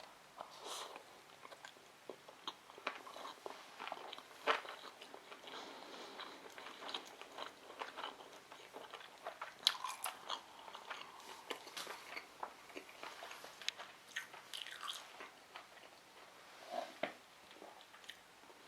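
A person chewing sushi rolls close to the microphone: a steady run of wet mouth clicks and crunches, with a few sharper bites standing out.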